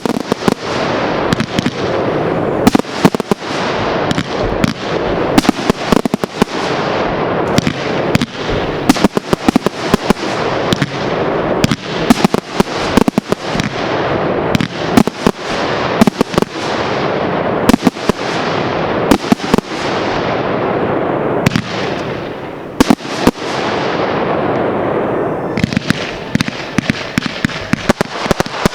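Aerial fireworks display, consumer cakes and mortar shells firing: sharp bangs every second or two over a steady dense crackle, which thins briefly near the end.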